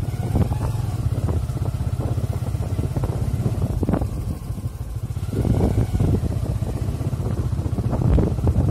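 Motorcycle engine running at low speed on a bumpy dirt track, with knocks and clatter from the bumps; it eases off briefly about halfway through, then picks up again.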